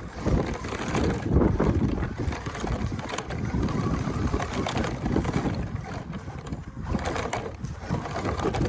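Battery-powered RC monster truck (NKOK Ford F-150 Raptor) driving over gravel and rock, heard close from on board: a rough rumble of its drivetrain and tyres with constant crackling and rattling from the stones.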